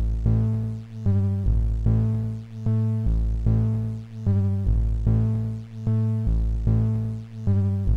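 Electronic music from an Amiga 4 KB intro, synthesised in real time and played through the Amiga 4000's Paula sound chip: a repeating pattern of sharply struck, fading synth notes over a heavy bass line.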